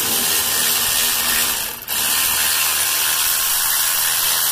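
Electric ratchet spinning out an air-conditioning compressor mounting bolt. It runs steadily, stops briefly just under two seconds in, then runs again.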